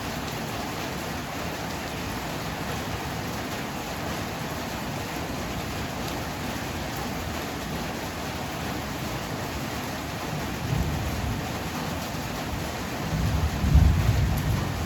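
Heavy rain falling steadily. Low thunder rumbles about eleven seconds in, then a louder rumble swells near the end.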